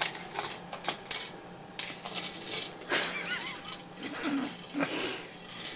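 Plastic cat fishing-rod toy clattering and scraping across a tile floor in irregular knocks and clicks as the cat drags it by the string caught around her neck.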